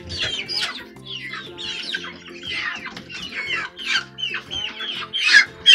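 A flock of hens clucking and calling over one another in quick, overlapping cries, louder near the end. Steady background music plays underneath.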